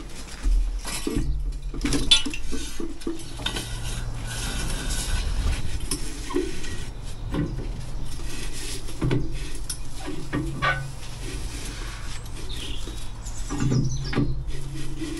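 Irregular metallic clinks, taps and scrapes from hand work at an opening in a brick wall, steel tools and a steel prop knocking against brick and mortar, over a low steady hum.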